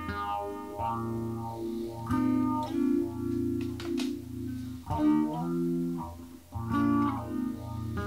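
Background music: sustained electric guitar chords through effects over a steady bass line.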